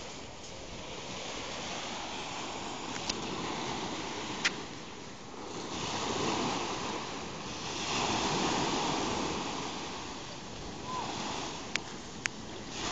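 Small waves breaking and washing up a sandy beach, the surf swelling and easing every few seconds, with a few sharp clicks over it.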